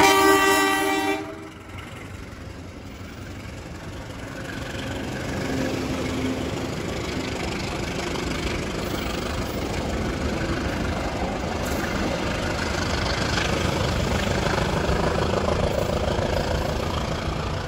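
The tail of a diesel-electric locomotive's horn blast, a chord of steady tones that cuts off about a second in. It is followed by the steady rumble of passenger coaches rolling past on the rails and moving away.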